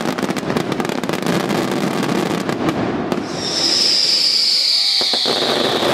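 Daytime fireworks: dense, rapid crackling pops from crackle-effect shells, joined about halfway through by a long shrill whistle that falls slowly in pitch.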